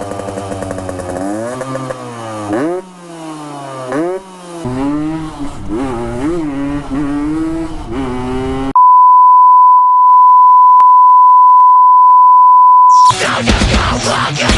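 Yamaha RX-King 135cc two-stroke single revved again and again through a Packing Power aftermarket exhaust, its note rising and falling with each blip. About nine seconds in it cuts to a loud steady beep tone lasting about four seconds, then loud heavy music starts near the end.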